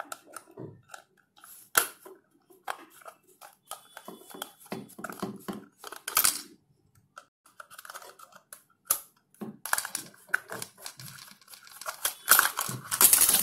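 Small screwdriver turning screws out of the circuit board inside a plastic speaker housing. Irregular small clicks, scrapes and rustling as the case and its wires are handled, with a few louder knocks about 2 and 6 seconds in and near the end.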